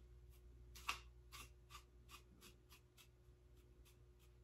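Wide-tooth comb raked through the synthetic Kanekalon fibres of a short wig: a run of faint, quick scratchy strokes, about three a second, the first one about a second in the loudest.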